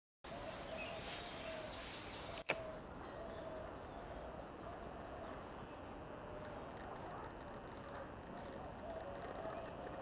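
Outdoor ambience among trees: a steady high insect drone, with one sharp click about two and a half seconds in.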